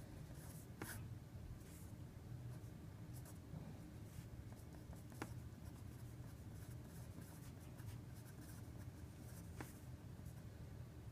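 Faint scratching of handwriting as equations are written out, with a few sharp taps of the pen, over a low steady hum.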